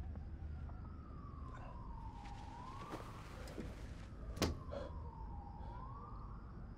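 Siren wailing, its pitch sliding slowly down and back up, twice over. A sharp click sounds about four and a half seconds in.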